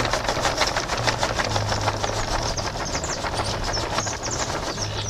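Dry, crumbly burrito (té de burro) leaves sliding off folded paper into a thin, soft plastic tub: a dense, continuous patter of tiny ticks as the leaves land.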